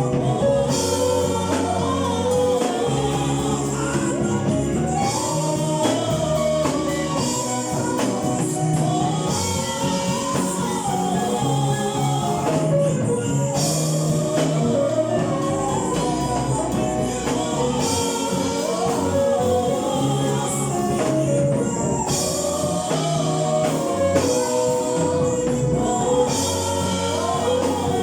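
Choir singing a gospel song with instrumental accompaniment and a bass line.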